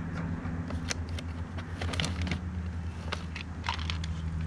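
Hands rummaging in a plastic tackle box and bait packets: a string of irregular clicks, taps and crinkles from plastic lids and packaging. A steady low hum runs underneath.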